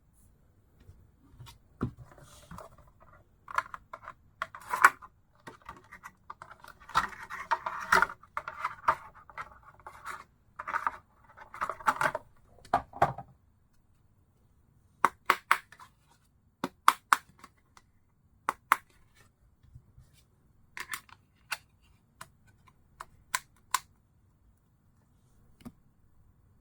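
Plastic protective phone case being handled: scraping and rubbing for about twelve seconds, then a run of separate sharp clicks and taps.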